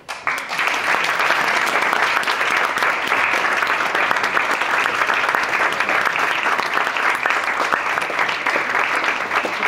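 Audience applauding: dense, steady clapping that breaks out suddenly right at the start and keeps up at an even level.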